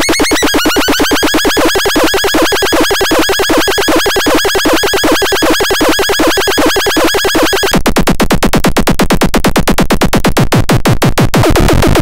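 Pharatron handmade patchable synthesizer giving loud, fast-stuttering buzzy electronic tones. About eight seconds in the bass drops away and the pulsing changes, and near the end a low drone comes back in as the knobs and patch cables are changed.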